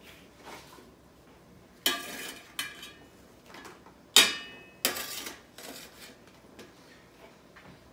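Metal spoon clinking and scraping against a metal serving tray and a plate as pieces of stockfish and dried fish are scooped up. There are several separate sharp clinks, the loudest about four seconds in with a short metallic ring.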